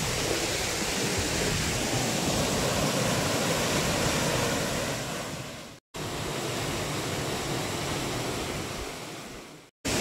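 Waterfall pouring into a rock pool: a steady rush of falling water. It is broken twice by abrupt dropouts to silence, each after a short fade, about six seconds in and just before the end.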